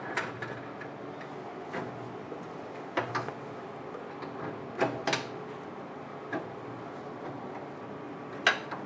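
Scattered sharp metal clicks and knocks, about seven in all, as a rotary bottle jig is handled and seated onto the mounting holes of a UV flatbed printer's perforated bed; the sharpest knock comes near the end. A steady low hum runs underneath.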